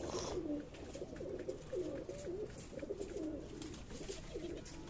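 Several domestic pigeons cooing together, a continuous overlap of low rolling coos, with faint scattered clicks.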